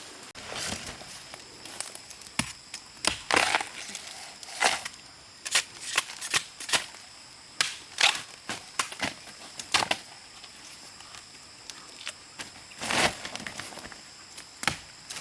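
Irregular sharp cracks and crunches, single and in short clusters, like plant stems being chopped or snapped.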